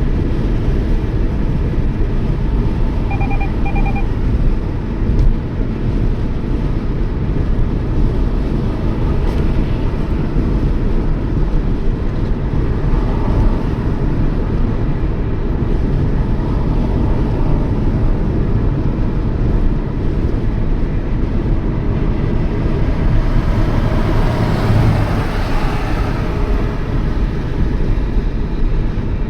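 Steady road and engine rumble heard inside a Toyota Yaris cruising at speed. A short, faint double beep sounds about three seconds in, and the noise swells briefly near the end.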